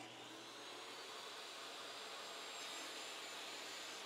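Steady whir of a jobsite table saw running free with its shop-vac dust extraction on, the blade spinning but not yet cutting.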